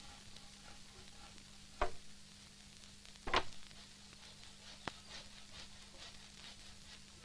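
Three sharp knocks on timber about a second and a half apart, from carpenters working boards on a log house roof. They sit over the constant hiss and crackle of an old film soundtrack with a low steady hum.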